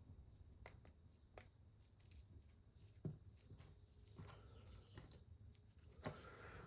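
Faint handling noise: a few scattered clicks and taps of small parts and tools, the sharpest about three seconds in.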